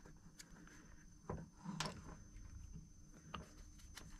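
Faint, scattered clicks and knocks of a metal trimmer head and its steel chain being handled and fitted by hand, about four in all, over a faint steady hum.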